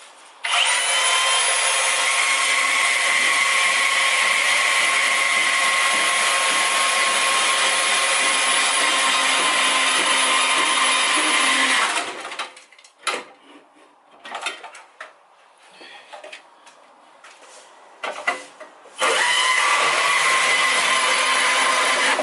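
Cordless Milwaukee M18 Fuel deep-cut band saw cutting through a car's upper radiator support: a steady motor whine with a high blade hiss for about eleven seconds. It stops, a few knocks and clatters follow, and the saw starts again for a second cut about three seconds before the end.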